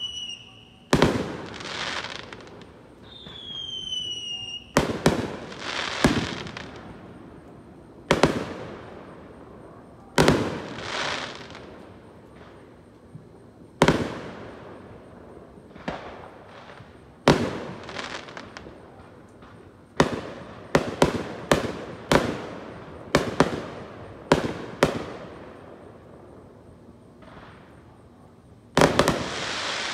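Aerial firework shells bursting at a distance, about twenty booms, each trailing off in a rolling echo, with a quick run of bursts about two-thirds of the way through. A short falling whistle sounds near the start and again about three seconds in.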